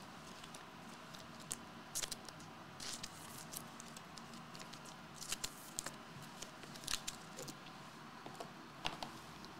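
Faint, scattered clicks and rustles of trading cards and foil card packs being handled on a playmat.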